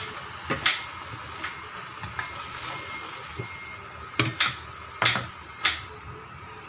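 Tomatoes, green chillies and onions cooking in oil and a little water in a nonstick wok, with a steady soft sizzle. A utensil knocks against the pan about a dozen times, several in quick succession about four to six seconds in.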